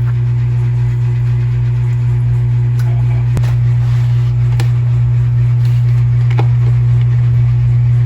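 A steady low hum with a few faint light clicks about three to six seconds in.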